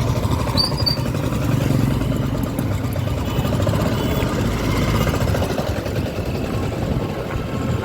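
Honda SP125's single-cylinder engine running steadily while the motorcycle rides along, with road and wind noise.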